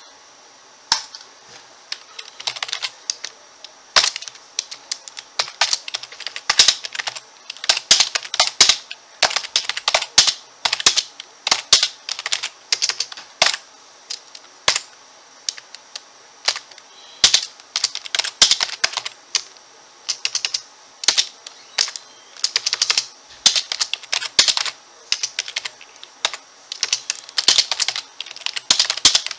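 Typing on a computer keyboard: quick runs of key clicks in bursts, with short pauses between words, starting about a second in.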